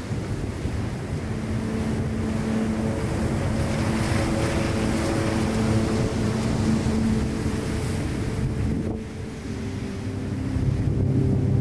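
Rough ocean surf breaking offshore and washing in foam over and between rocks, with a swell of rushing water a few seconds in and a brief lull near the end, and wind on the microphone.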